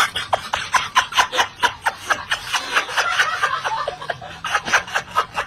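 A man laughing hard in a fast, even run of short bursts, about five a second.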